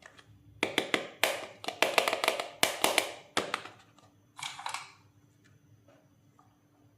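Hard plastic toy pieces clicking and tapping against each other as they are handled, a rapid clatter for about three seconds, then a short rustle a moment later.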